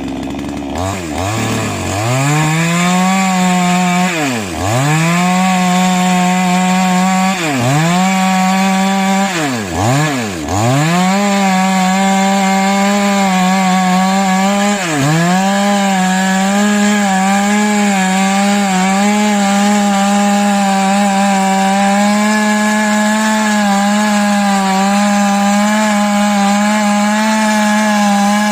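Small engine of a hand-held power tool running at high revs. Its pitch drops sharply and recovers about six times in the first fifteen seconds, as when it bites into a load, then holds steady at full speed.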